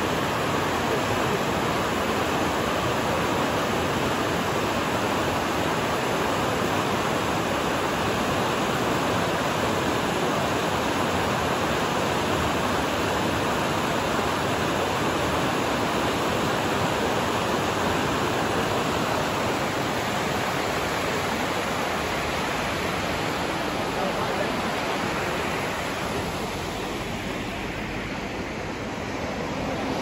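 Fast mountain river rushing over rocks and boulders: a steady, unbroken white-water rush, becoming a little quieter for a few seconds near the end.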